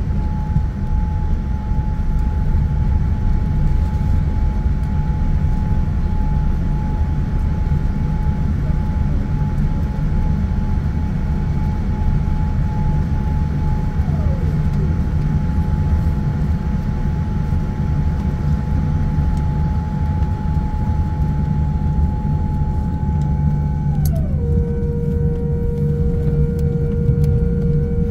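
Cabin noise of a Boeing 787-10 slowing and taxiing off the runway after touchdown: a steady low rumble with a thin steady whine that steps down in pitch near the end.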